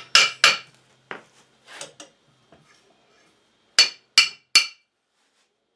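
Hammer blows on steel, ringing metallic strikes as a 5/8-inch bolt is driven into the parts of a blacksmith's leg vise: two strikes, a few light taps, then three quick strikes near the end.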